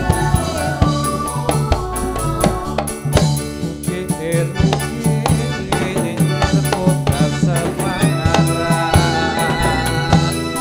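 Dolalak dance accompaniment: a steady, rhythmic beat of drums with jingling percussion and a running melody line.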